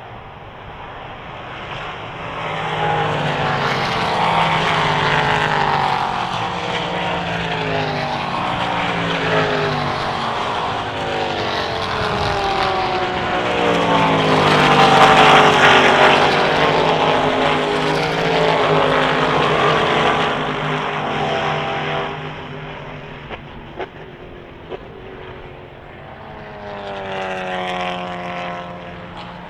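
Several endurance race cars passing at speed, their engine notes rising and falling with shifts and the pass-by; the loudest passes come about halfway through, and another car approaches near the end.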